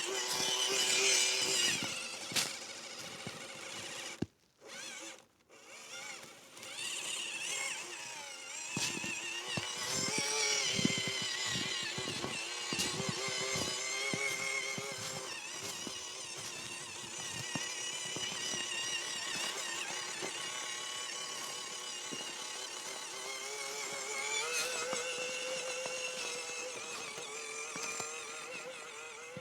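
WPL C84 RC crawler's small electric motor and gearbox whining as it drives, the pitch rising and falling with the throttle, with scattered short knocks. The sound nearly drops out briefly about four to six seconds in.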